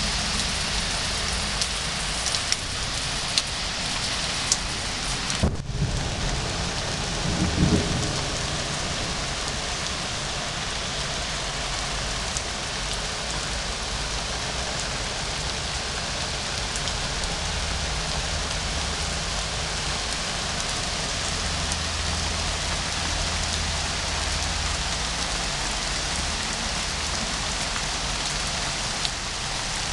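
Steady summer rain falling on garden plants and lawn, with a few sharp ticks in the first seconds. Thunder rumbles low behind it, once about eight seconds in and again past the middle.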